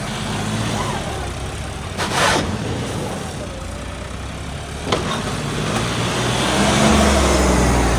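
Diesel tractor engine running while the tractor drives, its low rumble growing louder near the end, with a brief swish about two seconds in and a sharp click about five seconds in.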